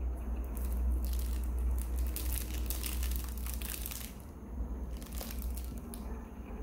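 Wrapping crinkling and rustling as it is handled, a dense crackle for about three and a half seconds from about a second in, then a few lighter rustles, over a steady low hum.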